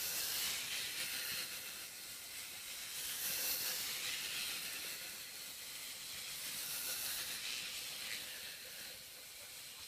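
Faint, steady hissing noise with no distinct events, swelling slightly about three seconds in and again around seven seconds.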